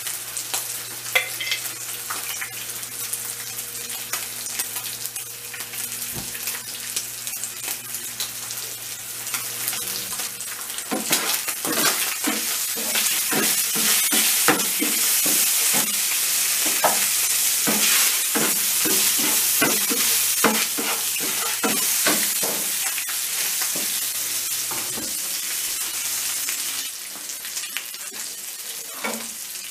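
Thin slices of beef sizzling in oil in a frying pan, with metal tongs clicking and scraping against the pan as the pieces are turned. The sizzle grows louder about a third of the way in and eases again near the end.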